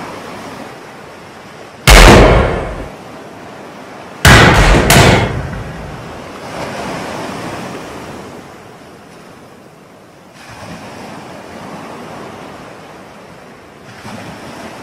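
Pistol shots: one loud shot about two seconds in, then two more close together a couple of seconds later, each dying away, over a steady wash of ocean waves.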